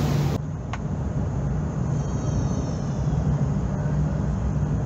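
Steady low engine rumble, heard from the vehicle deck of a car ferry. It follows a brief rush of wind and water noise that cuts off abruptly in the first half-second.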